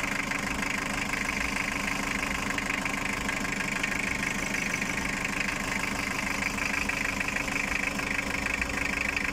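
Toyota 2L four-cylinder diesel engine idling steadily with an even, rapid knock, running after a top overhaul with a replacement cylinder head and head gasket to cure overheating.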